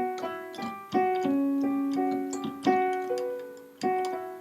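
Background piano music: struck notes and chords ringing and fading at a moderate, even pace.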